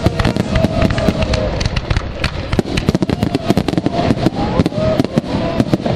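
Rapid barrage of aerial fireworks shells bursting, many sharp bangs a second overlapping one another over a constant low rumble.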